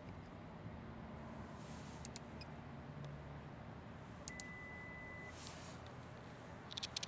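Plastic dashboard push-switches clicking under a fingertip, then a single steady electronic beep lasting about a second as the blind spot monitor switch is pressed. A faint low cabin hum runs underneath.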